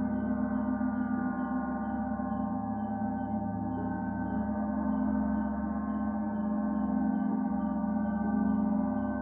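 Meditation gong sounding a long, sustained drone of many overlapping tones, with no new strike, swelling slightly in loudness in the second half. Faint high cicada chirps repeat about two to three times a second above it.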